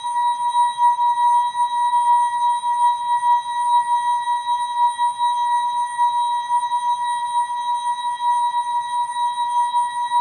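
The ASKfm app's notification sound effect, slowed and time-stretched into one long, steady ringing tone that wavers slightly in loudness.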